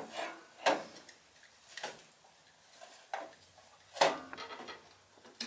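Clicks and light knocks of multimeter test leads and battery-maintainer alligator clips being handled at a riding mower's battery terminals, about six sharp taps with the loudest about four seconds in.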